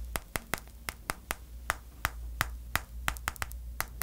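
Fingertips tapping the hard sugar-syrup shell of a tanghulu-coated macaron: sharp, glassy clicks, unevenly spaced at about five a second.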